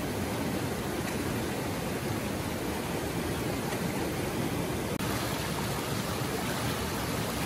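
Steady rush of a shallow rocky stream pouring over small cascades, with a momentary dropout about five seconds in.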